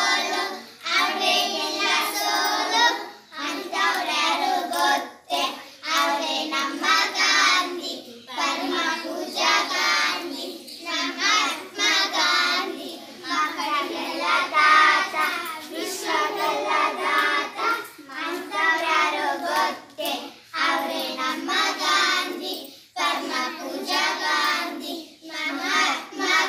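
A group of young children singing a song together in unison, phrase after phrase with short breaths between, with a few hand claps.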